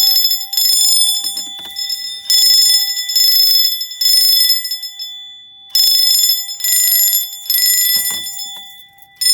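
Fire alarm system in alarm after a test key activation: alarm bells ringing loudly in repeated bursts of about a second, with a brief break about five seconds in, over a fainter steady electronic tone.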